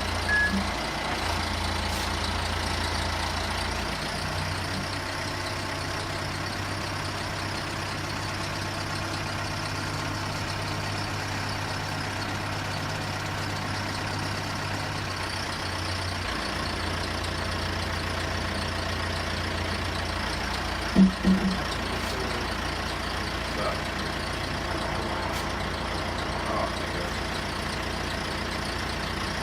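Truck engine idling steadily, with two short low beeps about two-thirds of the way through.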